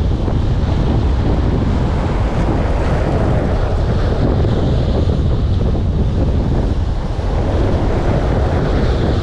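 Strong wind buffeting the microphone over rough surf breaking and washing across a rocky shore. The noise is loud and steady.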